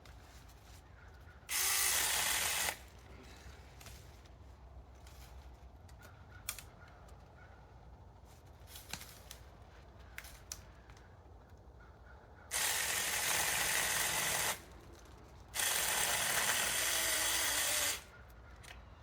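Saker mini 4-inch 20-volt battery chainsaw cutting a tree branch in three bursts: a short one about two seconds in, then two longer runs of about two seconds each near the end. Faint clicks and snaps come between the cuts.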